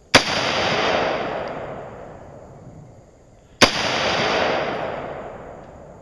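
AR-15 rifle in .223 firing two single shots about three and a half seconds apart, each sharp crack trailing off over about two seconds.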